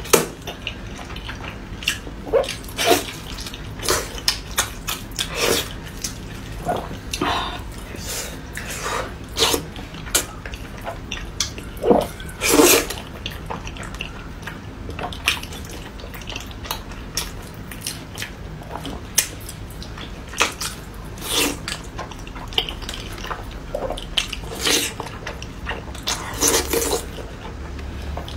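A person eating pork knuckle: wet chewing and lip smacks, irregular, with louder smacks about twelve seconds in and near the end.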